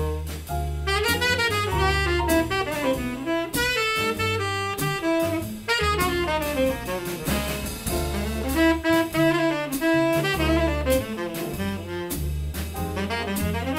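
Jazz big band playing: saxophone lines over a bass line and drum kit.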